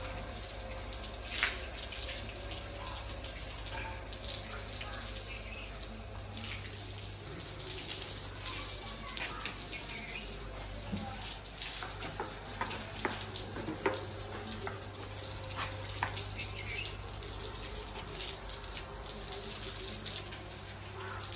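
Water from a hose spraying onto a cow's hide and splashing onto a wet concrete floor: a steady hiss of running water broken by irregular splatters.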